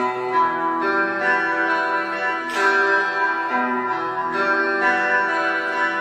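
Clean electric guitar being played, plucked notes ringing and changing about once a second, with one sharper picked attack about halfway through.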